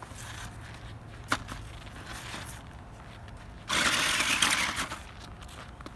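Toy RC monster truck's electric motor whirring for about a second as its tyres spin in the snow, stuck on ice. A single sharp click comes earlier, over a steady low hum.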